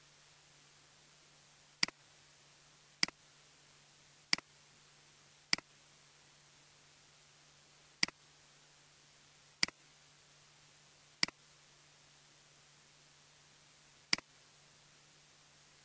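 Computer mouse button clicking eight times at uneven intervals, each click a quick double tick of press and release.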